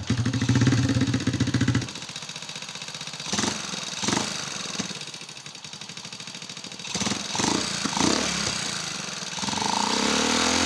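Honda Supra motorcycle's single-cylinder four-stroke engine running rough, with a harsh, 'pecah' (cracked-sounding) ticking knock. It is louder for the first two seconds, blipped a few times after that, and rising in pitch near the end. The knock is traced to the cylinder area, and the harshness is taken as a sign that more than one part is worn.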